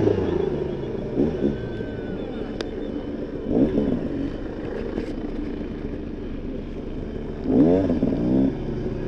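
Enduro dirt bike engine running at low speed, heard from the rider's own helmet, with short throttle blips about a second in and near the middle and a longer rev up and down near the end.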